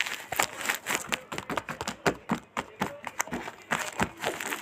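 Plastic blind-bag packaging being handled, a dense run of irregular crinkles, crackles and light taps.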